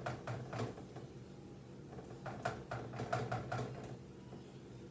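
Soft, irregular pats and light taps as raw ground-turkey burger patties are patted flatter by hand, over a faint steady low hum.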